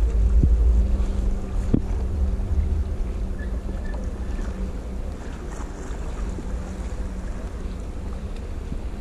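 Wind buffeting the microphone of a camera mounted on a kayak, a heavy low rumble that is loudest for the first second or two and then eases, over light water sound. A faint steady hum runs under it through the first half, and there is a single sharp click just under two seconds in.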